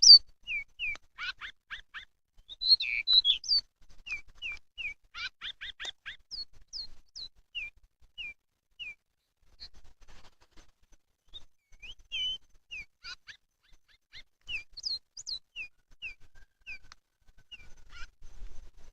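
Pied bushchat (decu) calls used as a bird lure: a long series of short, high, down-slurred chirps about every half second, broken by a few harsher rattling note clusters.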